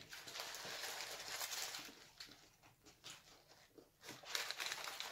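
Paper burger wrappers crinkling as they are handled, in two stretches: the first couple of seconds and again about four seconds in.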